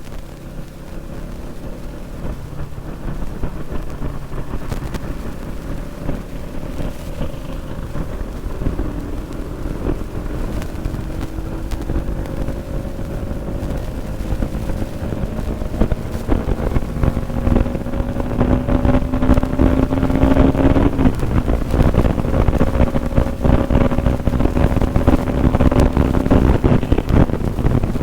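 Bajaj Pulsar NS200's single-cylinder engine under full throttle, its pitch climbing slowly in each gear and dropping back at upshifts about 9 and 21 seconds in. Wind noise on the microphone grows louder as speed builds.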